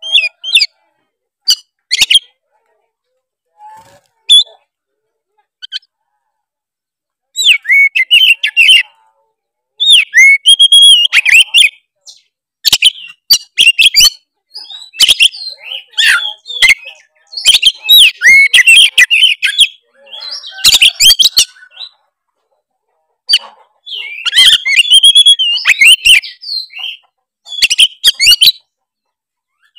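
Oriental magpie-robin (kacer) in full, vigorous song: rapid, varied whistles and chattering phrases in bursts with short pauses. After a few scattered short calls, the dense singing begins about a quarter of the way in. It is the kind of song that sets other magpie-robins answering.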